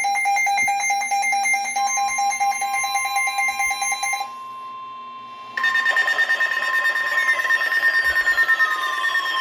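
Electronic weather-alert alarm tones from weather radio receivers, announcing a new severe thunderstorm warning. A rapidly pulsing alarm tone plays first, with a second steady tone joining about two seconds in. After a brief dip, a different, harsher alarm takes over with repeated falling sweeps.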